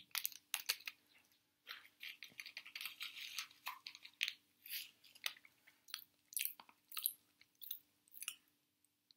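Close-up chewing of popping candy in the mouth: many short, sharp crunches and clicks at irregular intervals, thinning out near the end.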